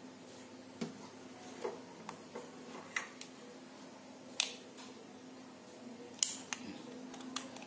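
Small metallic clicks and taps as a hair clipper's blade is handled and seated back onto the clipper body. There are several scattered clicks, the sharpest about four and a half and about six seconds in.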